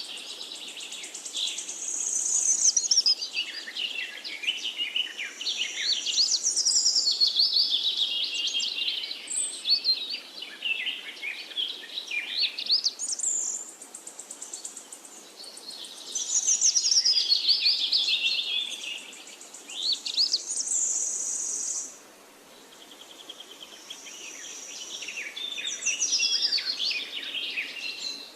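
Birds chirping and singing in rapid, high-pitched trills and chirp phrases that overlap one another, with a brief lull about three-quarters of the way through.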